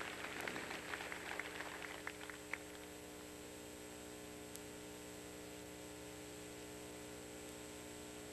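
Scattered applause dying away about two and a half seconds in. After it comes a steady electrical hum and hiss from the sound system, with a single faint click near the middle.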